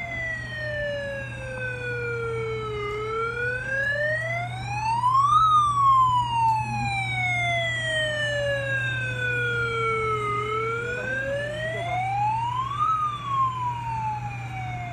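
Police-car kiddie ride playing a siren sound through its speaker: a slow wail that sinks in pitch over about five seconds and climbs back in two or three, twice over, with a steady low hum underneath.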